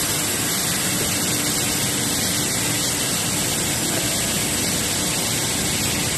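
Steady machinery noise from a plastics pelletizing line: an even, loud hiss with a faint low hum underneath.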